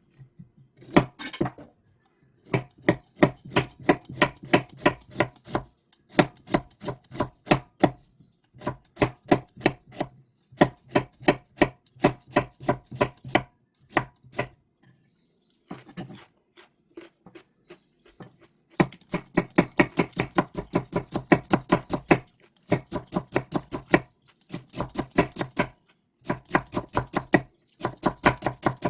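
Kitchen knife chopping quickly on a cutting board, in runs of rapid, even strokes, several a second, broken by short pauses.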